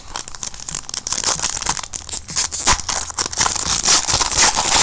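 Crinkling and tearing of a trading-card pack wrapper being ripped open and handled, a dense crackle that grows louder toward the end.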